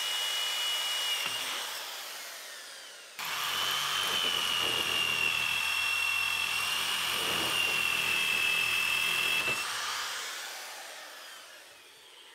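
Electric drill boring a taper-pin hole through a gear lever handle and shaft: a steady high motor whine that winds down over the first few seconds, then, after a sudden cut, a second run of about six seconds finishing the hole to size before slowing and fading out.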